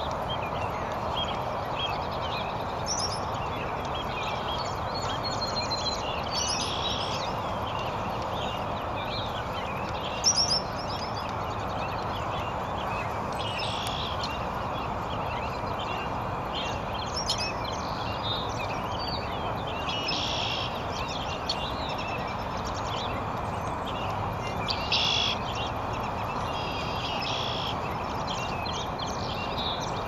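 Small birds chirping and calling in short, scattered notes over a steady background hum of outdoor noise, with a couple of louder calls standing out, one about ten seconds in and another near the 25-second mark.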